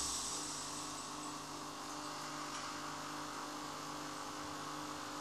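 Low, steady electric hum with two constant tones, from the InMoov robot's arm servos holding and moving under load as it pours a glass of wine.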